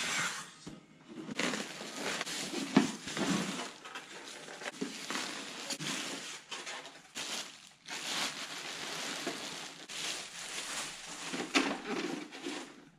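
Packaging being handled as a printer is unpacked: a plastic bag crinkling and rustling, polystyrene foam packing pieces rubbing, and irregular knocks and clicks, the sharpest about three seconds in.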